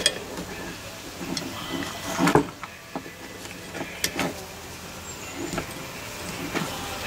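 Hand tool clinking and knocking against a metal brake caliper as it is worked on, with a few sharp metallic knocks spread through the handling noise.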